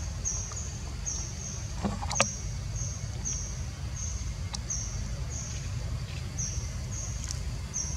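Repeated short high-pitched chirps, about two a second, over a steady low rumble, with one sharp click about two seconds in.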